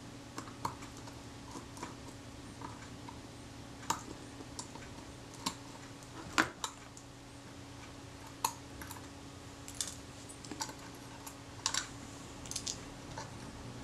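Small screwdriver and tweezers working the screws on the metal top plate of a Kodak Retina IIIS camera body: scattered, irregular light clicks and taps of tool tips on small metal parts.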